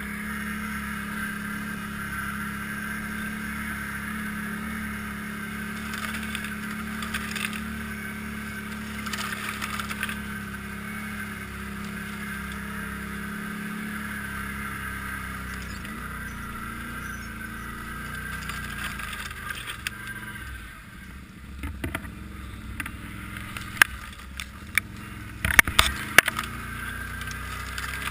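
ATV engine running steadily as the machine rides along a snowy trail, easing off after about twenty seconds. Several sharp knocks come near the end.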